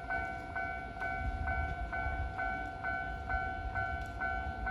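Japanese level-crossing warning alarm ringing: a repeating electronic bell at about two strikes a second, with a low rumble underneath.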